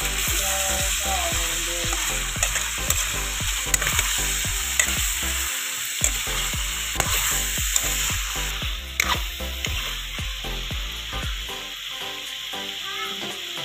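Raw chicken pieces sizzling in hot oil in a wok while being stirred, with frequent short scrapes and knocks against the pan.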